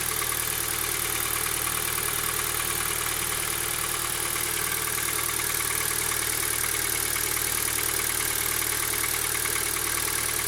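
Kia Ceed's 1.6-litre petrol engine idling steadily, with a faint, fast metallic knock in the engine whose cause the dealer's service could not find.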